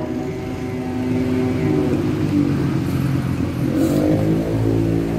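An engine running steadily, its pitch shifting about four seconds in.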